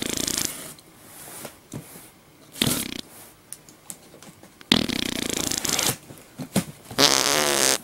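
A knife slitting the packing tape on a cardboard box in several rasping bursts, mixed with fart sound effects; the loudest bursts come about five seconds in and near the end.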